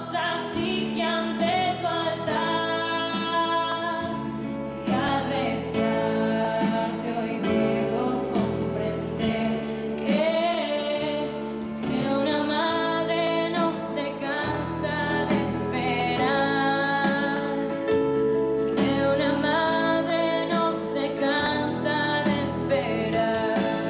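Music: a song with a singing voice over instrumental backing that keeps a steady beat.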